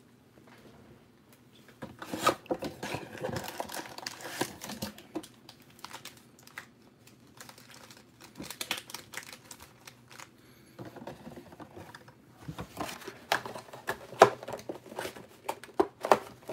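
Foil-wrapped Panini Prizm trading card packs crinkling and rustling as they are pulled out of the cardboard hobby box and stacked on a table, with sharp crackles and taps. The handling is loudest about two to five seconds in, dies down, then picks up again for the last few seconds.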